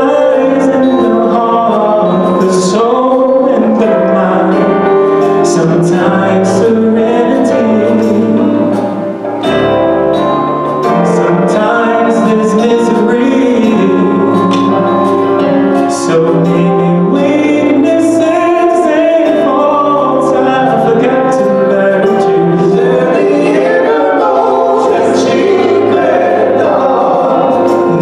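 Male gospel vocal group singing in harmony into microphones, heard through the room's sound system, with low sustained bass notes beneath the voices.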